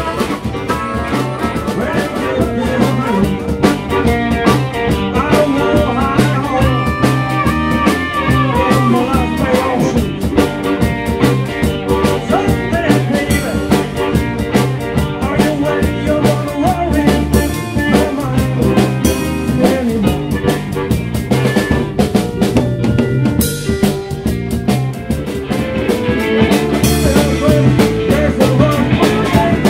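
A blues band playing with a drum kit keeping a steady beat under bass, electric guitar and harmonica.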